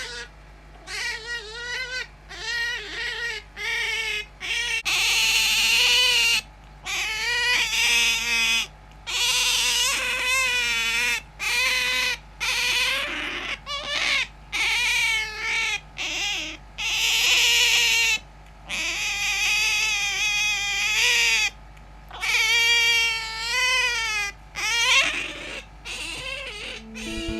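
Pet otter squealing: a long series of high, wavering squeaks, one call after another with short breaks between them.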